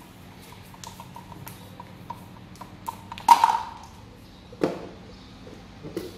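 Small plastic toy robots knocking onto a tiled floor: a sharp clack with a short ring about three seconds in, another knock about a second later and a lighter one near the end, after a few faint ticks.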